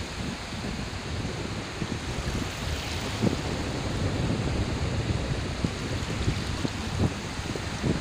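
Small surf waves washing in over shallow water on a sandy beach, a steady rushing hiss, with wind buffeting the microphone in low rumbles and a few sharper gusts.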